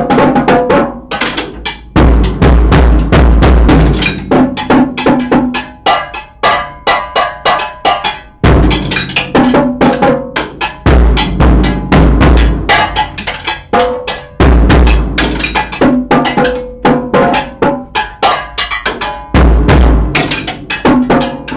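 Homemade drum kit played freestyle with sticks: dense runs of hits on the drums and cymbal, with deep low booms every few seconds.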